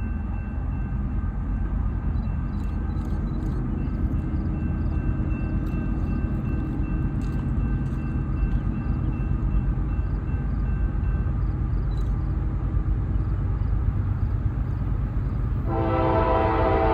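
Low, steady rumble of a Norfolk Southern freight train's diesel locomotives approaching. Near the end the locomotive horn starts to sound.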